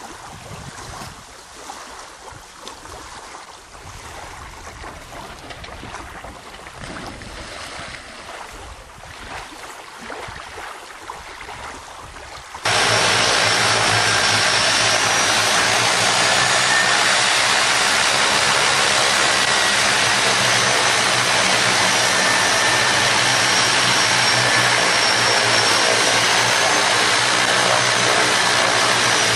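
Wind noise for about the first twelve seconds, then a sudden cut to a light propeller plane's engine and propeller droning loudly and steadily.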